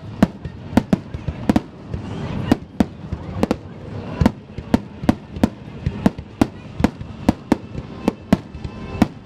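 Aerial fireworks shells bursting in quick succession: a steady string of sharp bangs, about two to three a second, with a rumbling wash between them.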